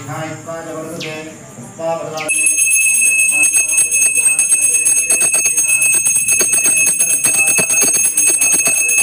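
Temple hand bell rung rapidly and without a break during aarti, the lamp offering, starting about two seconds in. Voices come before it.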